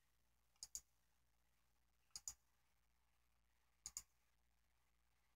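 Three faint double clicks of a computer mouse, about a second and a half apart.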